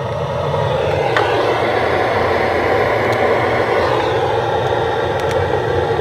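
Gas torch burner running with a steady, even rushing noise, aimed into a brick stove's flue to warm the cold chimney so the stove draws.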